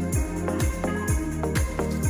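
Background music with a steady beat: a deep kick drum about twice a second under sustained pitched notes.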